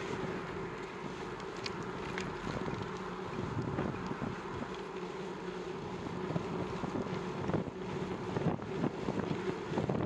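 Wind buffeting the microphone of a camera on a moving bicycle: a steady rushing noise, with a few faint ticks.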